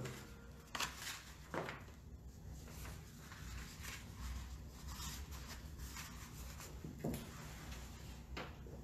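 Quiet room tone with a low steady hum and a few faint, short clicks and knocks, like small objects or papers being handled.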